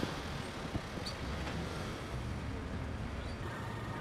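Harbourside ambience: a steady low engine rumble, with one short click a little under a second in.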